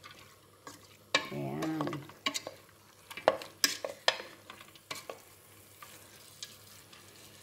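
Wooden spoon stirring and scraping bulgur with chopped tomato and onion in an aluminium pot, the grains sautéing with a light sizzle; the scrapes and taps come at irregular intervals. A brief wordless voice sound comes about a second in.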